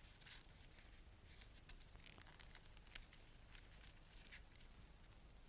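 Faint rustling and scattered small clicks of objects being handled, over a low hum.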